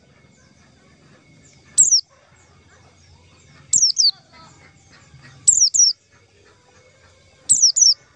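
White-eye (pleci) calling: short, high, downward-sliding notes in bursts of one to three, repeating about every two seconds.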